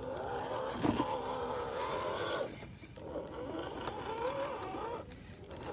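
Electric motor and drivetrain of an RGT EX86100 V2 1/10 scale RC crawler whining as it climbs over wet rocks, the pitch wavering with throttle and load. It stops briefly twice, a little past halfway and near the end, and there is a knock about a second in.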